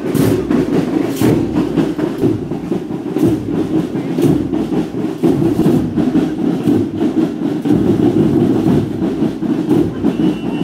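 Marching band drums playing a steady march rhythm, a strong beat landing about once a second over continuous drumming.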